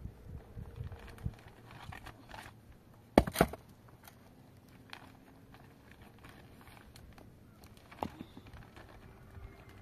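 Sharp knocks and clatter from hands-on work at a cinder-block hut: two loud knocks close together about three seconds in and one more about eight seconds in, over a faint, quiet background.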